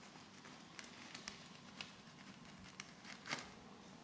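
Faint crackling of chilli paste frying in oil in a pan, with scattered small pops and a slightly louder knock a little over three seconds in.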